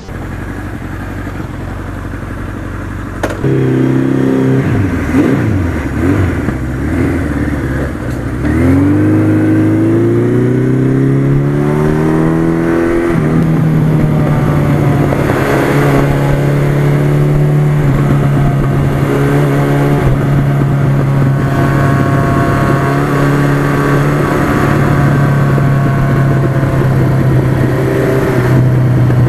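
Suzuki GS1100E's air-cooled inline-four engine on the move. After a low steady note at first, it jumps up in level and rises in pitch under acceleration, with a shift about 13 seconds in. It then holds a steady cruising note.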